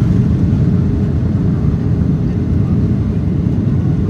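Boeing 767-300ER's jet engines at takeoff thrust, heard from inside the cabin over the wing as the airliner lifts off: a loud, steady, deep roar.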